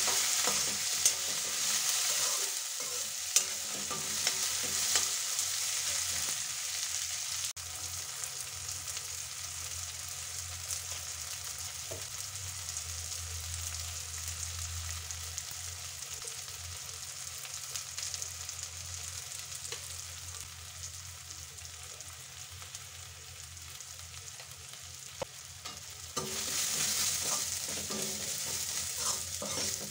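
Chopped onions and tomatoes sizzling in hot oil in an aluminium kadai, with a metal spatula scraping and clicking against the pan as they are stirred. The sizzle is quieter through the middle and grows louder again near the end.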